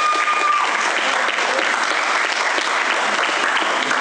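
Audience applauding, a dense steady clatter of clapping; a long held high tone cuts off about half a second in.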